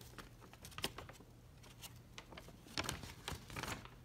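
Light rustling and crinkling of a folded paper instruction sheet being handled and unfolded, with a few soft ticks and taps; the handling is heaviest about three seconds in.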